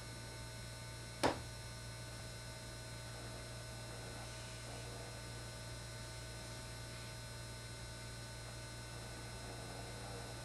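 Steady electrical mains hum with a faint hiss, broken once by a single sharp click about a second in.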